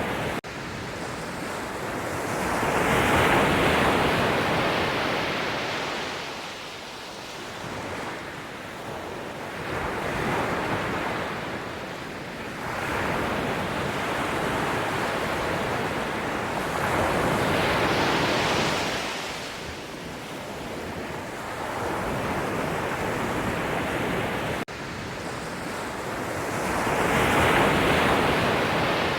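Sea waves surging in and drawing back in a steady rushing wash. The surf swells about every seven to nine seconds, four times in all.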